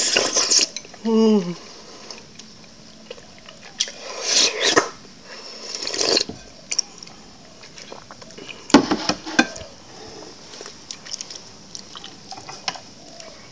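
Ambuyat (sago starch gel) and fish soup being slurped from a glass bowl with chopsticks: several wet slurps, at the start and again twice around the middle. A short hum falls in pitch about a second in, and light clicks and knocks come later, the loudest a little past the middle.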